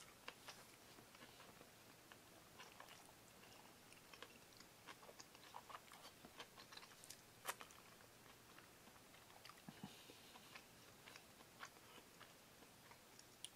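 Faint chewing of a man eating a lobster taco: soft, scattered mouth clicks and smacks, with one sharper click about seven and a half seconds in.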